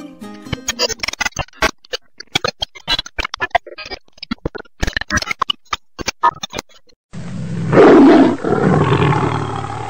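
A rapid, irregular run of clicks and taps for about seven seconds, then a lion's roar that starts abruptly, is loudest about a second in and fades away.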